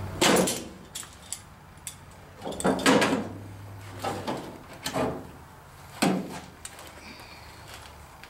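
Sheet-metal floor patch panel scraping and clunking against the truck's floor as it is slid in under the old floor and worked back out, in about five separate scrapes, the longest about three seconds in.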